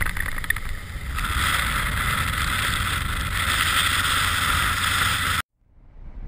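Wind rushing over the microphone of a moving motorcycle, with the low rumble of the engine underneath. Near the end the sound cuts out suddenly to silence, then fades back in more quietly.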